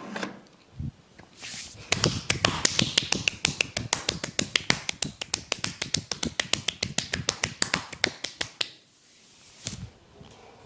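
Rapid percussive massage tapping: hands striking the body in a fast, even train of sharp slaps, about eight a second. It starts about two seconds in and stops a couple of seconds before the end.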